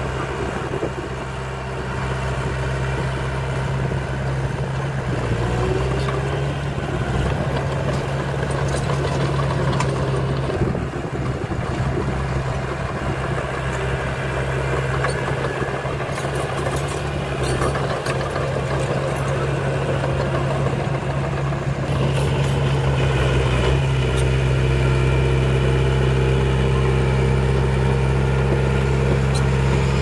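Small crawler bulldozer's diesel engine running steadily as it works soil, a constant low hum with a few light clicks, growing louder about two-thirds of the way through.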